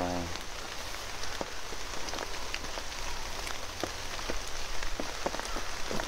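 Rain falling on trees and grass: a steady hiss with many separate drops ticking on leaves.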